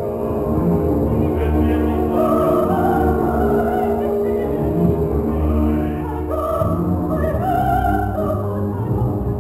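An operatic voice sings sustained notes with a wide vibrato over an orchestra.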